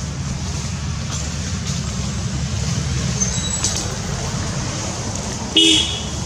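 Steady low rumble of outdoor background noise, with a short high-pitched call about five and a half seconds in.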